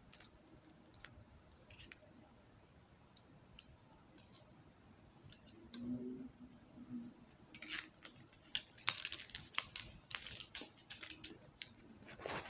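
Fingers or nails tapping and scratching on objects: a few light, sparse taps at first, then a quicker, louder run of taps and scratches from about seven and a half seconds in.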